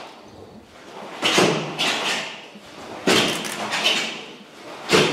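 Cotton karate uniforms snapping and swishing with each block and punch as children step through basic techniques. The snaps come in pairs about half a second apart: one pair about a second in, another about three seconds in, and a single snap near the end, each with a short echo.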